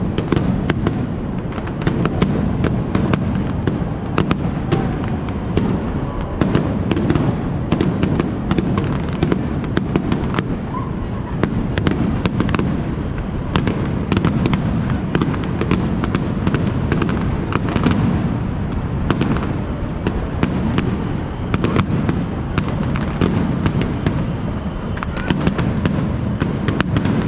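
Fireworks display: a continuous barrage of aerial shells bursting, with many sharp cracks and bangs over a steady rumble.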